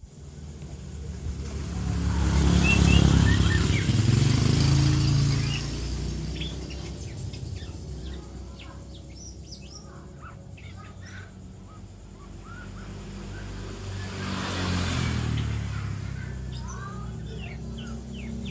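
A young murai songbird twittering in many short, high chirps as it practises its song. A motor vehicle passes twice, its rumble swelling and fading, loudest about three seconds in and again near the end.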